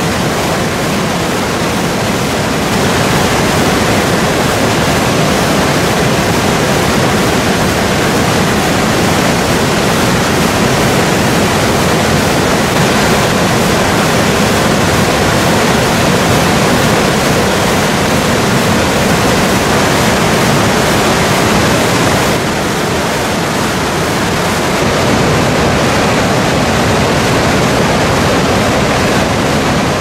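The Gastein waterfall in flood, swollen by snowmelt and heavy rain: a loud, steady rush of white water pouring down the rocks.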